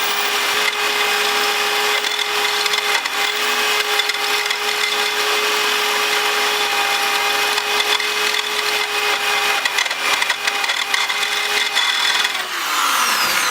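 Handheld rotary tool (Dremel type) fitted with a cobalt drill bit running at a steady high speed, grinding a pilot hole into a broken steel frame-rail bolt. The steady whine drops in pitch near the end as the tool spins down.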